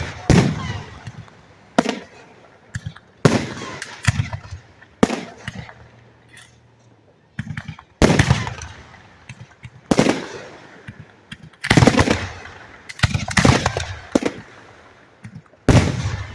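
Aerial firework shells bursting directly overhead: a string of loud bangs one to three seconds apart, each trailing off in a fading echo, with a quick run of crackles near the end.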